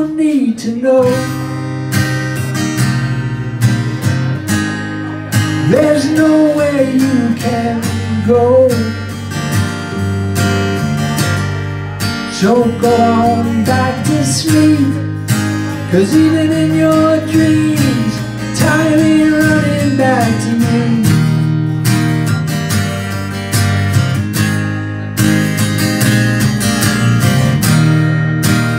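Live acoustic guitar strumming with electric bass underneath, and a man's voice singing in stretches: a country-folk song played by a duo.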